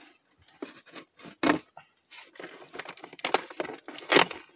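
A boxed toy's packaging being handled and worked open: scattered short rustles, scrapes and knocks, the loudest about a second and a half in and again near the end.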